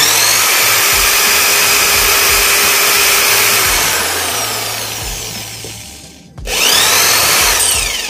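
Electric hand drill with a 4 mm bit boring a hole through a metal brake pedal plate, the motor running at speed. The drill stops briefly about six seconds in, then starts again with a rising whine.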